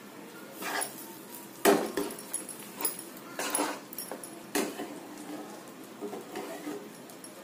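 Slotted metal spatula knocking and scraping against a frying pan about a dozen times at irregular moments while stirring melting butter, one knock, a second or two in, much louder than the rest.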